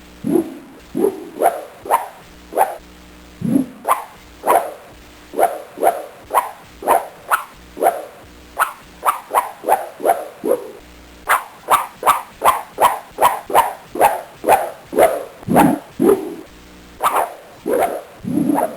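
A dog barking over and over, short sharp barks about two a second, with a few brief pauses.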